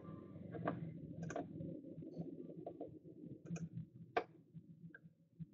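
Computer mouse clicking: about five separate sharp clicks, the loudest about four seconds in, over a low, steady room hum.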